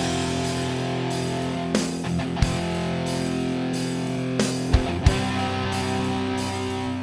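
Background music with guitar: held chords that change every few seconds, with a few sharp hits.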